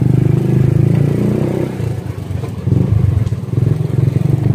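Motorcycle engine running under way, heard from on the bike. The engine note drops briefly a little past halfway through, then picks up again.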